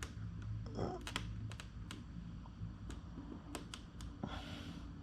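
Irregular light clicks and taps of fingers handling an LED bag blade light strip and pressing it against a motorcycle saddlebag lid, with a short rubbing sound near the end.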